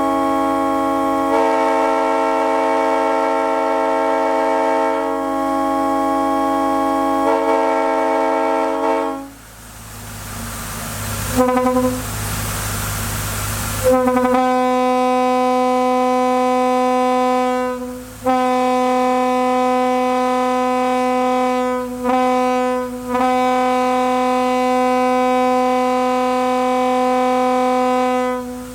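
Locomotive air horns blowing loud, sustained chords. A Nathan K3H three-chime horn holds a chord for about nine seconds. After a few seconds of rushing air noise and a brief blast, more long horn blasts follow, broken by short gaps.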